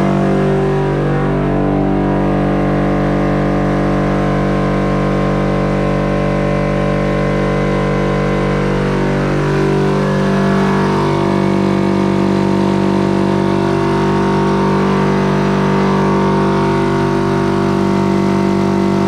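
Electric hydraulic pump motor of a two-post car lift running steadily with a loud hum, switched on abruptly just before and working the lift.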